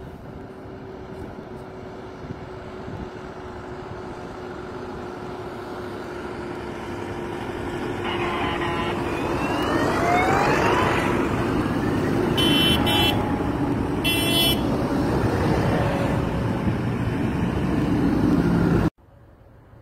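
A column of farm tractors driving past on a highway, their engines growing steadily louder as they approach, one engine rising in pitch as it speeds up. Horns sound in two short blasts about two-thirds of the way through, and the sound cuts off suddenly near the end.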